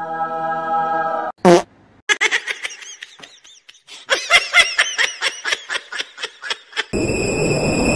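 A comedy fart sound effect: a steady low buzzing tone lasting about a second and a half, then a short falling squeal. It is followed by a high-pitched laughing sound effect in quick repeated bursts lasting several seconds.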